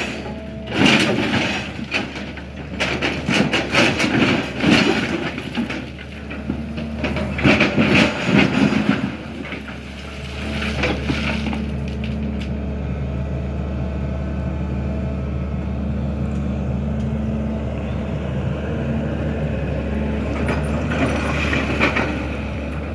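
SANY hydraulic excavator's diesel engine running, with loud irregular knocking and scraping over roughly the first ten seconds as it digs mud from the well. After that it settles into a steady engine drone.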